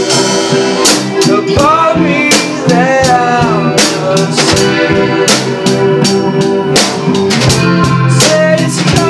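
Indie rock band music: electric guitar and drum kit playing steadily, with a voice singing a few lines in places.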